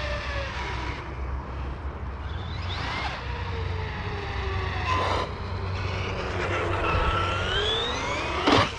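Radio-controlled truck's electric motor whining as it drives. The pitch falls over the first few seconds as it slows, then climbs again under throttle. There is a sharp knock about five seconds in and a louder impact near the end.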